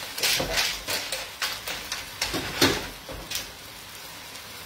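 Cooked clam shells clicking and clattering against one another and the frying pan as they are picked over by hand: a loose series of sharp clicks for about three and a half seconds, then only a faint steady hiss.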